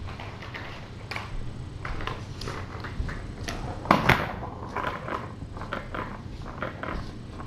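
Light clicks and handling knocks, loudest in a clatter about four seconds in as a round plastic ball-track cat toy is set down on a hardwood floor, over a steady low hum.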